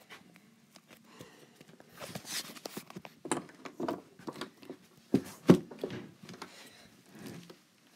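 Handling noise from an iPad being grabbed and held against clothing: irregular rustling and knocks, the loudest a couple of bumps about five and a half seconds in.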